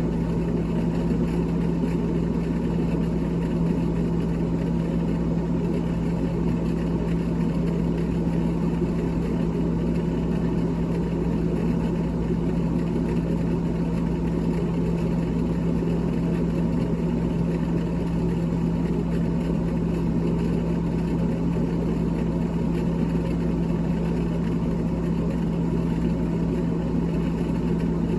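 Refrigerator's freezer fan motor running with a steady, unchanging hum and a strong low tone.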